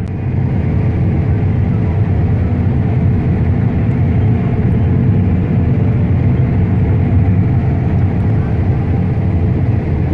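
Heavy farm machinery running steadily: a loud, low diesel engine drone with a constant hum.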